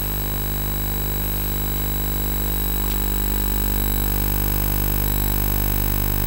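Background music: a steady, low sustained drone with no beat or melody, holding the same level throughout.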